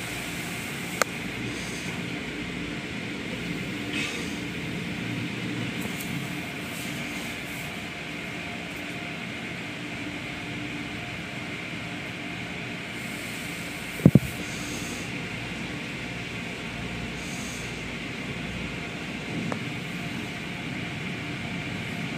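Automatic soft-cloth car wash heard from inside the car: a steady rumble of the wash machinery and spray, with cloth strips sweeping over the car. One sharp, loud knock comes about fourteen seconds in.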